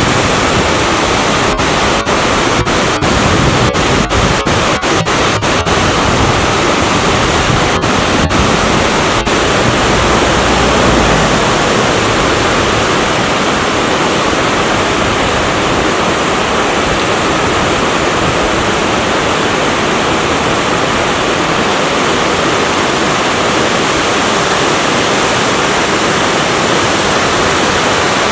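Yongchu Falls, a waterfall about 5 m high, pouring into its pool: a steady, loud rush of falling water, with a few momentary dropouts in the first third.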